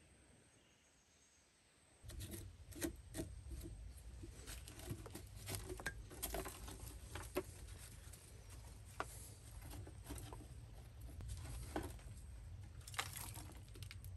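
Handmade fired-clay blower housing and pulley wheel being handled and set in place on an ash-covered hearth: irregular scrapes, clicks and knocks of clay and grit, starting about two seconds in over a low steady rumble.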